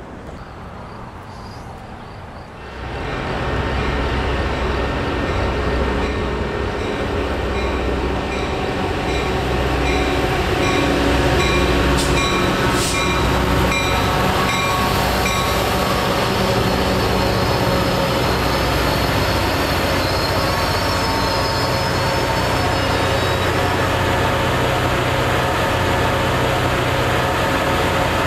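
Train running on rails: a loud, steady rumble with squealing wheels that comes in suddenly about three seconds in and carries on.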